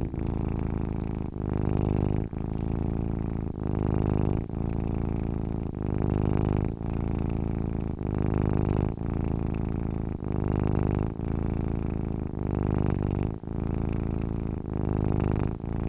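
A cat purring steadily, in even cycles broken by a short dip about once a second as it breathes in and out.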